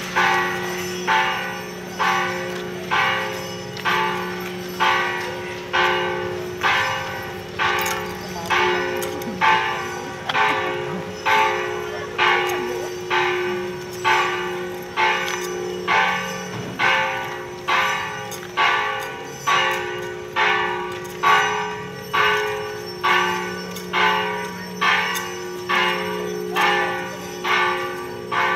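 Church bells ringing in a steady rhythm, struck about once a second. Each stroke rings on into the next over a lasting hum.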